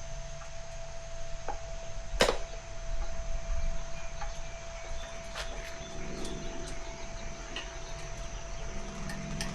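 Tire levers clicking and knocking against a dirt bike rim as the tire bead is worked on, with one sharp click about two seconds in and lighter clicks after. A steady thin hum runs underneath.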